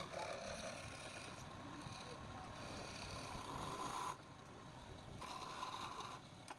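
Electric wood lathe running with a steady whine. The sound drops about four seconds in, comes back a second later, then falls away near the end.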